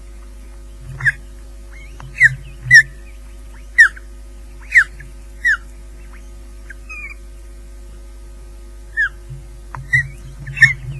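Ospreys calling at the nest during feeding: short, sharp chirps that slide downward in pitch, about nine in a loose series with a pause in the middle. A steady electrical hum runs underneath.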